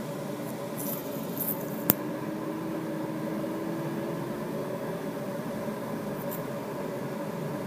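Steady rush of air inside the cockpit of a Duo Discus glider in flight, with faint steady tones under it and one sharp click about two seconds in.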